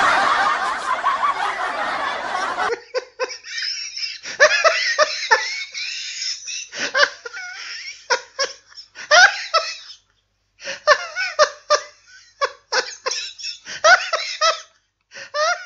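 A noisy stretch for about the first three seconds, then laughter in repeated short bursts, broken by brief gaps of silence.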